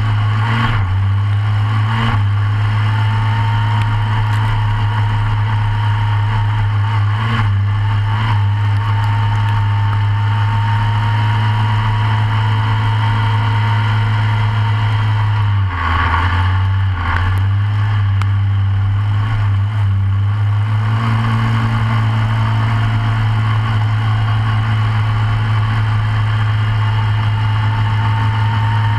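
Short course off-road kart's engine running at a fairly steady pitch while racing, heard from inside the cockpit, with a thin whine riding above it for much of the time. The note dips briefly a few times, with knocks, the longest dip about halfway through.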